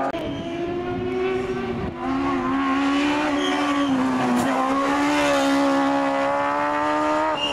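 Hill-climb prototype race car engine running hard at high revs up the course. Its pitch dips briefly about two seconds in and again about four and a half seconds in, then holds and creeps upward.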